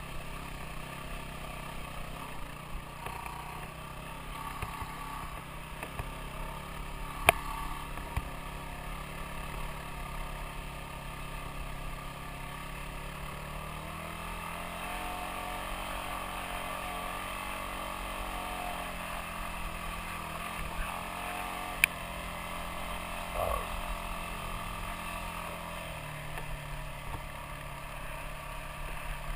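Off-road motorcycle engine running steadily while riding a dirt trail; its pitch climbs about halfway through, holds for several seconds and drops back near the end. Two sharp knocks stand out, one about a quarter of the way in and one about three quarters of the way in.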